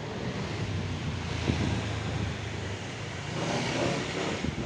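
Street traffic: a motor vehicle's engine running past, swelling louder about three and a half seconds in, with a single sharp click about a second and a half in.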